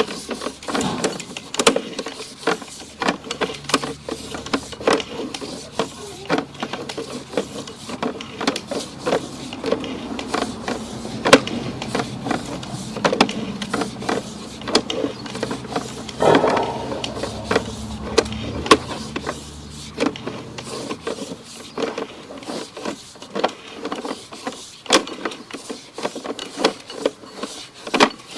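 Sewer inspection push camera being worked back and forth through the pipe: many irregular clicks and knocks of the camera head and push rod, over a steady mechanical hum that stops about twenty seconds in.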